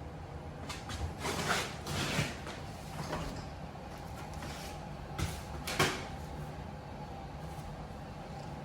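Wooden knocks and scrapes from a prehung French door unit being shifted in its rough opening, its bottom pushed outward to bring it flush; a cluster of scrapes in the first couple of seconds, then two sharper knocks about five and six seconds in.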